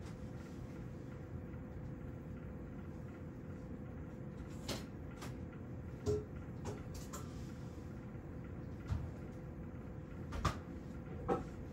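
Room tone with a low steady hum and a faint steady whine, broken in the second half by about eight small knocks and clicks, like something being handled or a cupboard or door being moved.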